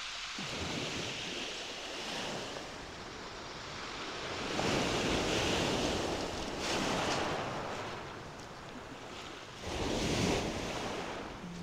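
Sea waves breaking and washing up a shingle beach, swelling louder about four seconds in and again near the end, with wind buffeting the microphone.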